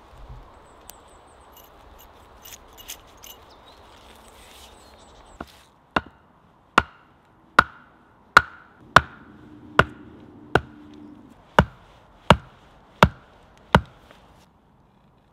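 An axe head knocking on the top of an upright wooden stake, driving it into the ground: about a dozen sharp knocks, one every three quarters of a second or so, the first one light. They are preceded by a few seconds of faint rustling and small clicks.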